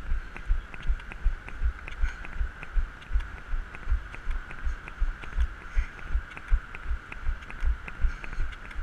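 Rhythmic strides of running on crutches: low thumps about two or three a second, each with a light click, over a steady hum.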